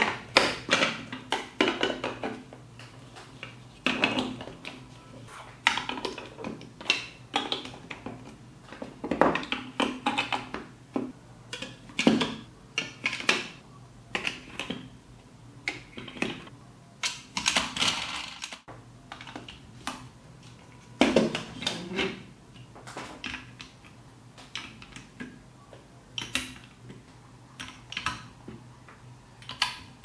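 Large plastic toy building bricks clicking and clacking as they are pressed together and handled, in irregular bursts of sharp snaps with short pauses between.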